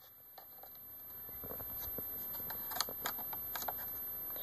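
Small plastic clicks and light scraping from fingers prying at a laptop's plastic screen bezel, a scattered run of ticks several times over.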